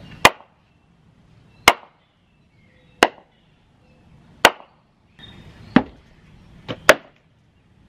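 Home-made wooden mallet, with a cottonwood head on a yellow-pine handle, striking a log stump. Six sharp wooden knocks come about one and a half seconds apart.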